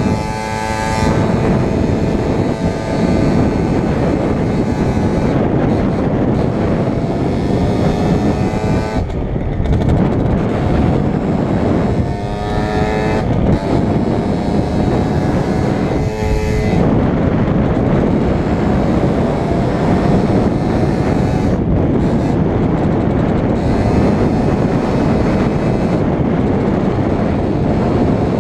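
Motorcycle engine and exhaust under way, the revs climbing and then dropping several times as the bike accelerates and shifts gears.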